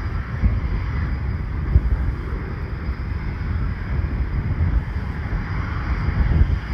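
Jet aircraft engine noise at an airport, a steady rush, with wind buffeting the microphone in low gusty thumps.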